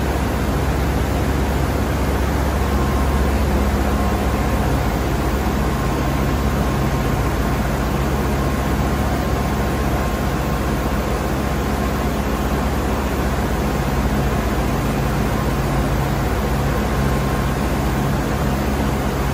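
Steady machine hum of an SNK Nissin BP130 CNC horizontal boring mill as its rotary pallet table turns, with a faint high whine joining about two and a half seconds in.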